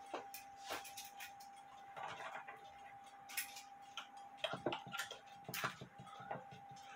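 Quiet, irregular metal clicks and knocks of vice grips (locking pliers) being adjusted and clamped onto a screwdriver shaft under a wooden table, over a faint steady tone.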